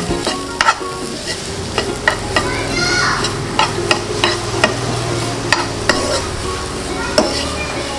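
Steel spatula stirring and scraping grated raw mango, green chillies and curry leaves in a non-stick pan, with sizzling from the hot oil. Irregular sharp clicks come from the spatula knocking against the pan.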